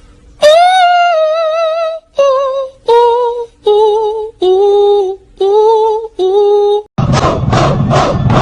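A high voice singing a run of short held notes with vibrato, with brief breaks between them. About seven seconds in, a loud, noisy sound pulsing about three times a second takes over.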